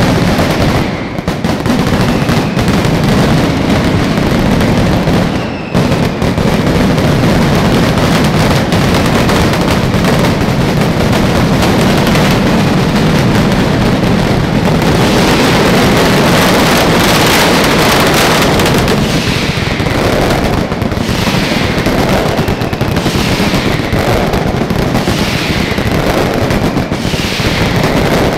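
Mascletà: a continuous, very loud barrage of masclets (heavy firecrackers strung on overhead lines) exploding in rapid succession. Whistles falling in pitch come through about once a second, mostly in the second half, and the barrage is at its densest around the middle.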